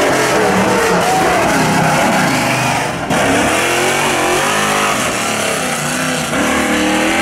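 Lifted mud truck's engine revving hard, its pitch rising and falling as it throttles through the course, with abrupt breaks in the sound about three seconds in and again near the end.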